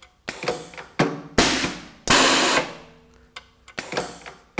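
Pneumatic rotary indexing press cycling: knocks from the ram and the indexing table, each followed by a sharp hiss of exhausting air that fades away. There are about four such bursts, with a faint hum between them.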